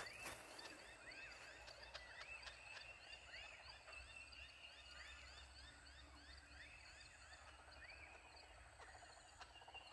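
Faint dawn chorus of many birds: overlapping short chirps and quick rising whistled calls, some repeating about twice a second.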